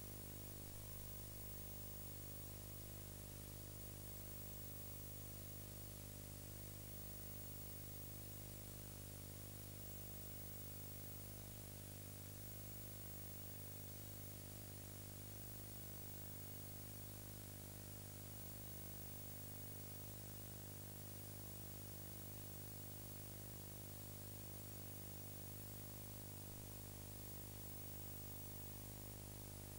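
Steady low electrical hum with a layer of hiss and nothing else: the background noise of an old analog recording.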